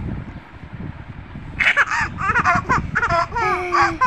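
Baby laughing in a run of short, high-pitched bursts, starting about a second and a half in.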